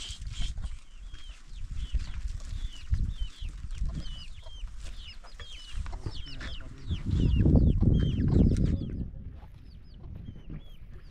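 Chickens calling: a rapid, continuous stream of short high peeps. About seven seconds in, a loud low rumble lasting about two seconds covers them.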